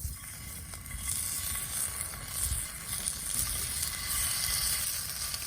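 Food sizzling and spitting in a hot pan, a steady frying hiss with a low rumble underneath.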